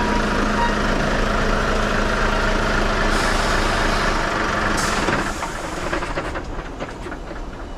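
Container lorry's diesel engine running close by as it pulls in, with two short air-brake hisses about three and five seconds in. The engine sound then drops away.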